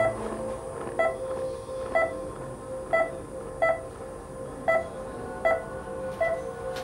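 Hospital heart monitor beeping with each heartbeat: a short pitched beep about once a second, over a steady low tone.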